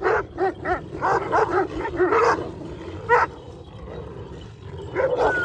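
Several large flock-guarding shepherd dogs barking: a quick run of barks, a single bark about three seconds in, a short lull, then barking again near the end, as dogs from two flocks square off.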